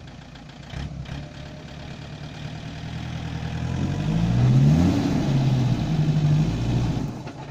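Toyota Land Cruiser engine revving under load as the 4x4 tries to climb a rock step: the revs build gradually, rise sharply about four seconds in, hold high, then fall away just before the end. It does not get up the step.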